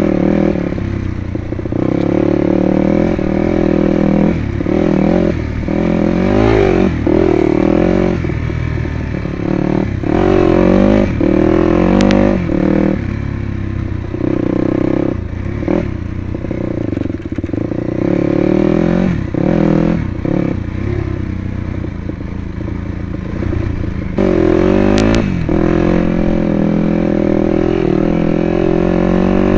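Dirt bike engine running under constant throttle changes, its pitch rising and falling again and again with short drops as the throttle is let off.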